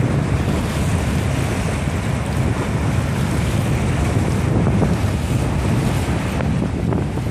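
Steady wind buffeting the microphone, a low uneven rumble, over the rush of open water.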